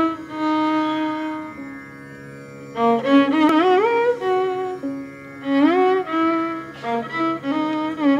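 Carnatic-style instrumental music: a string instrument plays a melody of sliding, wavering notes over a steady drone, with new phrases starting about three seconds in and again near the middle.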